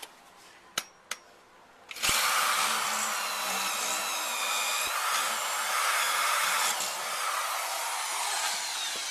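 Bosch GSB 16RE impact drill drilling a hole into concrete at high speed. It starts about two seconds in after two small clicks and runs steadily for about seven seconds, its motor whine dipping and recovering as the bit bites.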